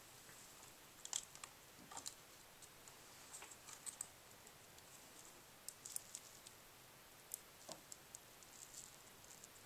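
Faint, scattered light clicks and ticks from fingers handling the parts of a Dell XPS M1530 laptop's screen assembly, coming a few at a time with near silence between.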